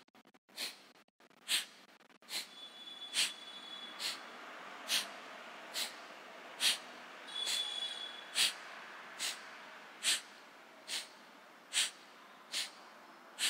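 Kapalabhati breathing: short, forceful exhalations puffed out through the nose one nostril at a time, switching between left and right, with a finger closing the other nostril. The puffs come evenly, a little more than one a second, about sixteen of them.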